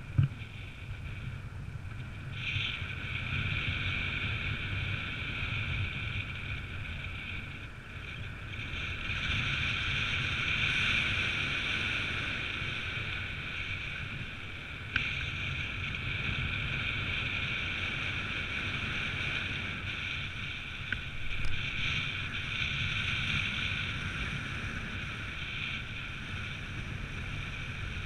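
Airflow and wind rushing over the camera microphone in paraglider flight: a steady low buffeting rumble with a high hiss that swells and eases, and a single sharp knock about halfway through.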